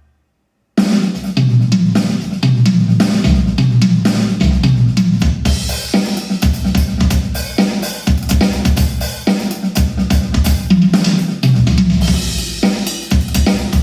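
Music with a drum kit (kick, snare and cymbals) and a heavy bass line starting abruptly about a second in after a brief silence, played back through a pair of Hivi Swans D1200 speakers for a sound test.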